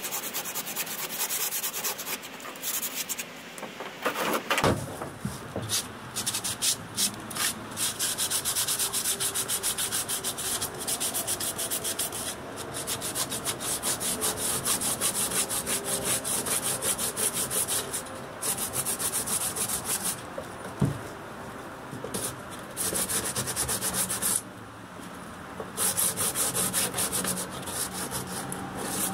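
Hand-sanding fiberglass with a sanding block: quick back-and-forth scrubbing strokes that stop briefly a few times, with a sharp knock or two.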